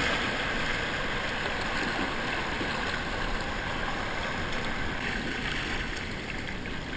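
Whitewater of a river wave-train rapid rushing and splashing around a kayak, heard close from the boat, easing a little near the end as the water flattens out.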